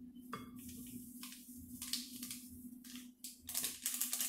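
Dry-yeast sachets crinkling as the yeast is shaken out over a glass mixing bowl, in a run of short rustles that come thicker near the end, over a steady low hum.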